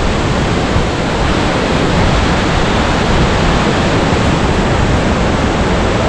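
Kynrem Falls, a large waterfall, pouring onto rocks, with whitewater rushing down the boulder-strewn stream below: a loud, steady rush of water.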